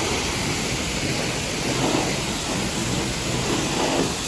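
Car-wash spray wand jetting water and soap onto a car's bodywork, a steady rushing hiss.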